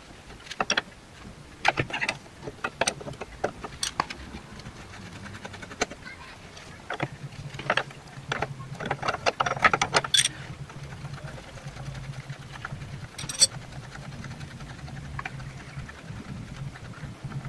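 Spanner working the rear brake hose union at the top of a Classic Mini's radius arm as it is undone: a scatter of sharp metal clicks and taps, busiest between about seven and ten seconds in, with a low steady hum from about seven seconds in.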